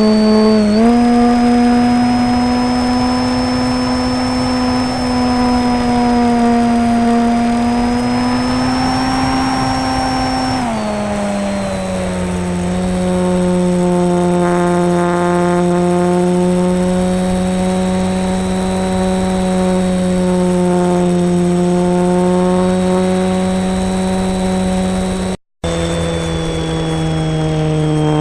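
Electric motor and propeller of a foam RC model plane, heard from on board, running at a steady pitch with a high whine above it. About ten seconds in the pitch drops as the throttle comes back, then holds steady. The sound cuts out for a moment near the end.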